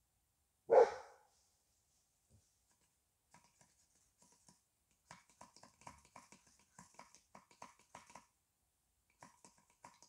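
A dog barks once, loud and short, about a second in. After that come quick, light scrapes and clicks, several a second, from hand work on wood close by.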